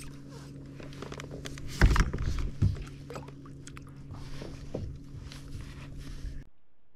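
Clicks and knocks of fishing tackle being handled on a kayak, over a steady low hum. The loudest knock comes about two seconds in, and the sound cuts off abruptly near the end.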